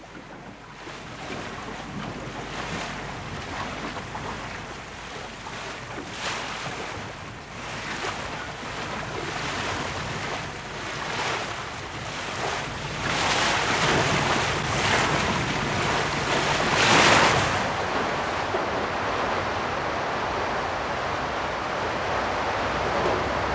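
Rough sea and wind around a fishing trawler: waves surge and splash along the hull in repeated washes that build up, the biggest about two-thirds of the way through. Then comes a steady wash of breaking surf.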